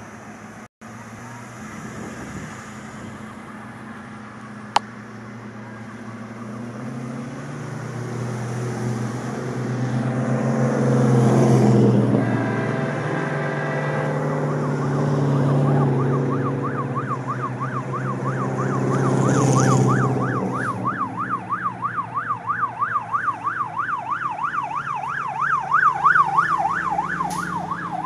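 A stock car's engine runs loud as it drives past, peaking about eleven seconds in. Then a siren starts a fast yelp, going up and down about three times a second, and keeps on to the end over the sound of passing traffic.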